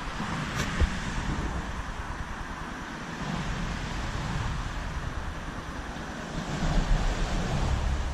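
Road traffic rumbling on the bridge overhead, swelling twice as vehicles pass, over a steady rushing hiss, with a small click just under a second in.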